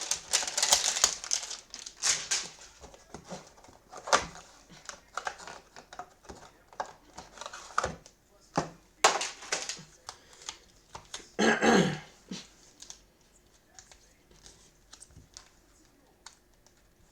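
A cardboard hanger box of trading cards is torn open and the cards are worked out of a tight inner carton. The cardboard crinkles and tears loudly for the first two seconds, then gives scattered clicks, rubs and scrapes, with one brief louder burst about halfway through. Only faint handling remains in the last few seconds.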